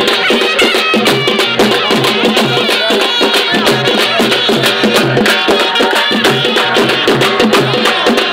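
A traditional ensemble of large barrel drums playing a loud, fast, even rhythm.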